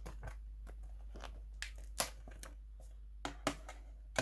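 A thin paper J-card slipcover being slid and pulled off a Blu-ray steelbook case: paper rustling and scraping, with a few sharp taps from handling the case, the loudest about two seconds in.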